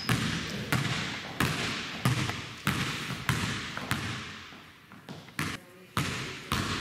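Basketball dribbled on a hardwood gym floor, each bounce a sharp slap with an echoing tail, about three bounces every two seconds. The bounces grow faint a little after the middle, then come back loud near the end.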